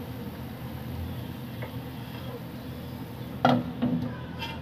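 A glass pan lid is set down on a metal pan of simmering syrup, clinking twice in quick succession about three and a half seconds in, over a steady low hum.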